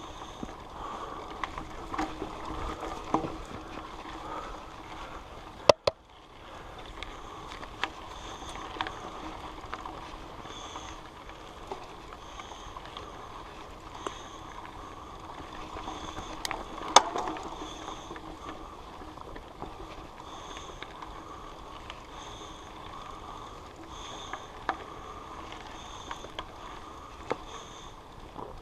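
Muffled rattling and scattered knocks from a loosely strapped, chest-mounted action camera jostling on a trail ride, with one sharp loud knock about six seconds in.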